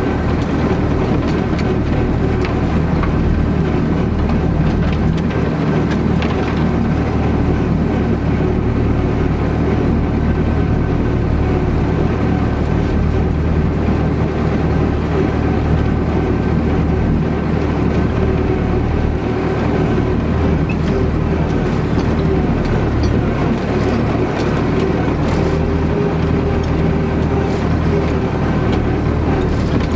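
Belarus MTZ-82 tractor's four-cylinder diesel engine running steadily while driving, heard from inside the cab, with faint scattered clicks and rattles.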